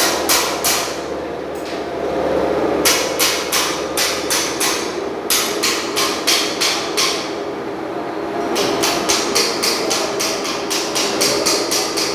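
Hammer striking metal in runs of quick blows, several a second, with short pauses between runs.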